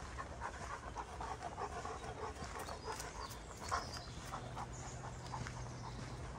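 A Greater Swiss Mountain Dog panting in quick short breaths as it runs along the path, with one sharp click a little past halfway.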